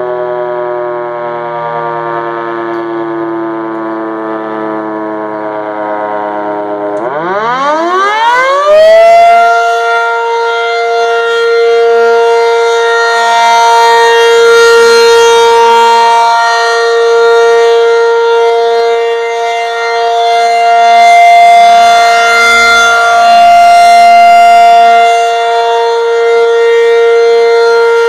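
Federal Signal 500-DH-TT electromechanical outdoor warning siren, its pitch slowly winding down, then spinning back up steeply about seven seconds in to a steady held tone. This is the start of a three-minute alert signal, and the loudness swells and fades as it sounds.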